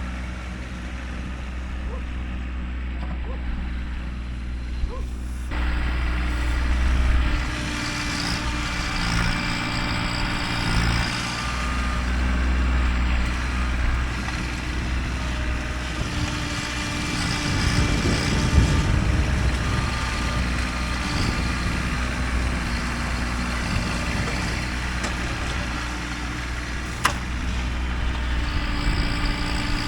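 Kubota tractor's diesel engine running steadily as it works dirt, growing louder and rougher about five seconds in.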